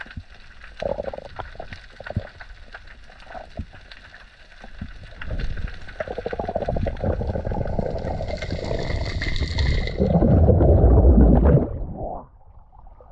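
Underwater sound around a free-diver's camera: scattered clicks and crackles near the seabed. A denser rush of water and bubbling builds as he swims up, loudest with a deep rumble about ten seconds in. It cuts off sharply as the camera breaks the surface near the end.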